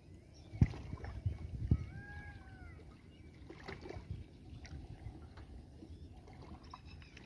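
Small boat on the water: two sharp knocks about a second apart, with low lapping and splashing of water. A bird calls once, with an arching note, about two seconds in.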